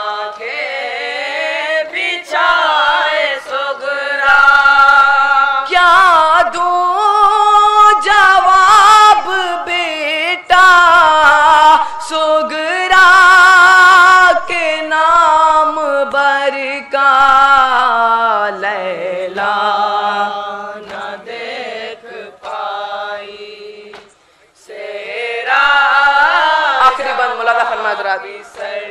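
A solo voice singing a noha, a Shia lament, in long drawn-out melodic phrases with ornamented, wavering held notes. The singing breaks off briefly about 24 seconds in and then resumes.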